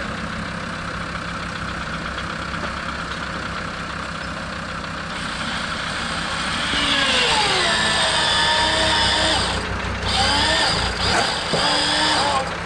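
Off-road vehicle's engine idling, then about halfway through an electric winch starts to pull: its whine drops in pitch as it takes the load and then holds steady, stopping and restarting a few times near the end.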